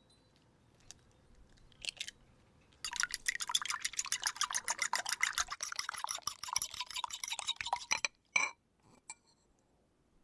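Fork beating eggs in a small bowl: a rapid run of clicks as the tines strike the bowl, starting about three seconds in and stopping suddenly about five seconds later.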